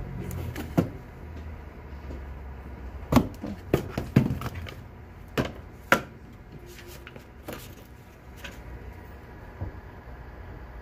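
Framed pictures being flipped through in a cardboard box: a series of sharp knocks and clacks as the frames hit one another and the box, bunched together in the middle.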